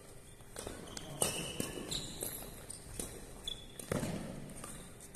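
Badminton doubles rally: sharp racket strikes on the shuttlecock and footfalls on the court floor, with several short, high shoe squeaks in between.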